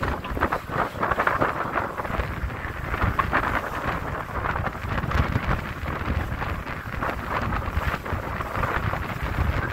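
Gusting wind buffeting the microphone, over the rush of sea water along the hull of a catamaran under way.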